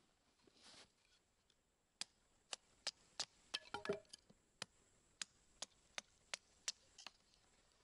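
Light, sharp chopping strikes on wood, a quick series of about fifteen knocks beginning about two seconds in.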